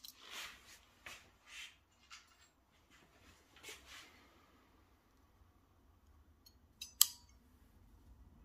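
Hand ratchet crimping pliers being handled while crimping a terminal onto a wire: soft rustling and scraping, then a couple of small clicks and one sharp metallic click from the tool about seven seconds in.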